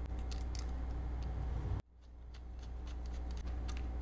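Light, scattered clicks and rustles of wire ends and small plastic electrical parts being handled, over a steady low hum. The sound cuts out abruptly a little under two seconds in and fades back up.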